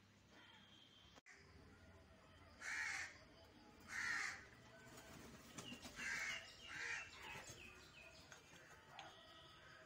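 A crow cawing four times: two single harsh caws a little over a second apart, then a quick pair.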